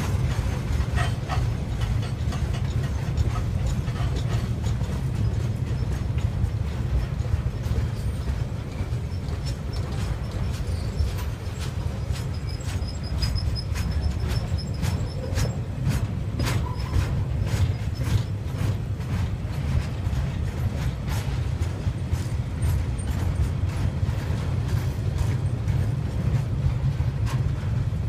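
Container wagons of a freight train rolling past: a steady low rumble of steel wheels on rail, broken by frequent clicks and clacks. A faint, thin high squeal rises out of it about halfway through.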